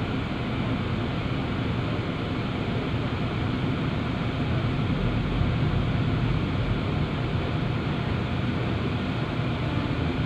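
Engine of a small passenger ferry running steadily, heard on board as a low drone with a little water and wind noise. It grows slightly louder midway as the boat manoeuvres in to the pier.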